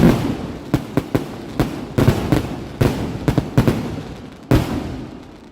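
Fireworks going off: a loud blast at the start, then a quick, uneven string of sharp cracks for about four seconds, and another loud blast about four and a half seconds in that fades away.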